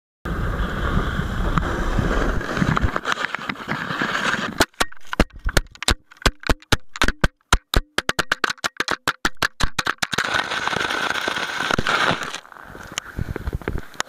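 Action-camera audio of sliding over snow, a steady rushing scrape, then for several seconds a fast run of sharp clicks and knocks broken by brief dropouts as the camera tumbles in the crash that broke it, then the sliding noise again.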